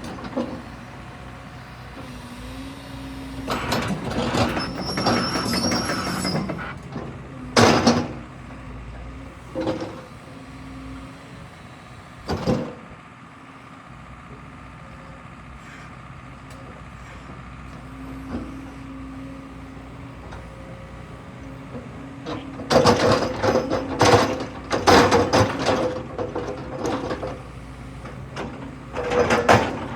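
Crawler excavator's diesel engine running steadily while the machine is worked, with hydraulic whine. Loud metal clanks and squeals of the steel tracks and attachments break in: a squealing stretch about four seconds in, single knocks around eight and twelve seconds, and a dense run of clanks near the end.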